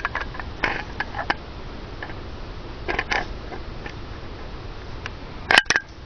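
Small metal clicks and taps as a cheap multi-tool's bottle-opener blade is handled and fitted against the crown cap of a glass beer bottle, with two sharper clicks near the end.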